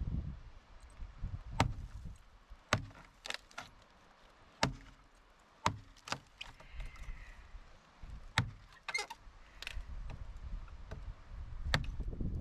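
Irregular sharp knocks and metallic clinks, about a dozen spread unevenly, with a low rumble near the start and end.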